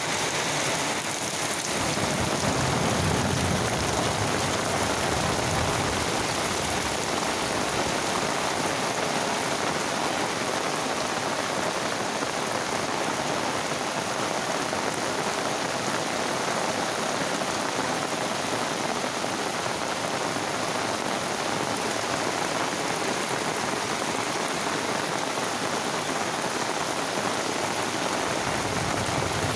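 Heavy rain falling steadily on surfaces, a dense even hiss throughout, with a low rumble a couple of seconds in.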